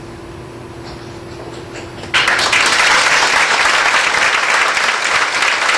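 Audience applause. After about two seconds of quiet room tone with a steady hum and a few scattered claps, it breaks out suddenly and loudly and keeps going.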